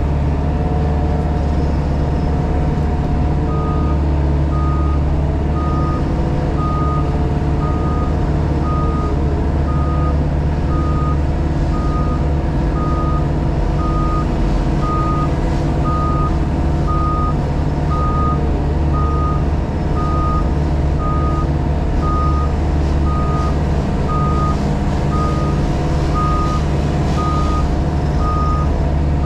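Diesel engine of a JCB Pothole Pro running steadily, with its reversing alarm starting about three seconds in and beeping evenly, about one and a half beeps a second, as the machine backs up.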